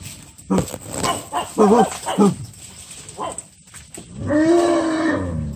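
Bornean pygmy elephant calling at close range: several short calls, then about four seconds in a longer call that rises and then falls in pitch.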